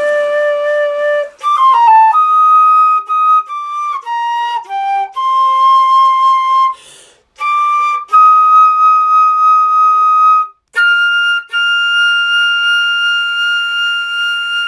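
Solo flute playing a slow melody of long held notes, broken by a few quick falling runs and short breaths between phrases, ending on a long held high note.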